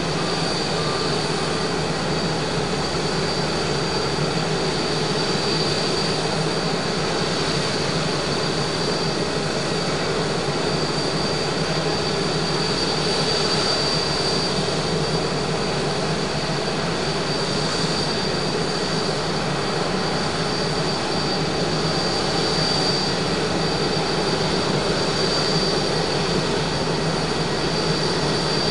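Boeing 777-200ER's twin jet engines at takeoff thrust on the runway: a steady low drone with a high, steady whine above it.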